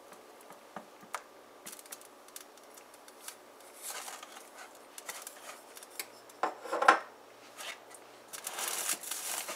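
Silicone spatula stirring and scraping melting butter in a nonstick frying pan, with brown sugar tipped in from a bowl about four seconds in and pushed around, butter and sugar being melted together for a glaze. Scattered clicks at first; the loudest scrape comes a little past two-thirds of the way in, and a gritty scraping runs on near the end.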